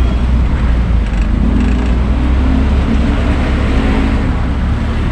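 Truck engine running, heard from inside the cab while driving: a steady low rumble.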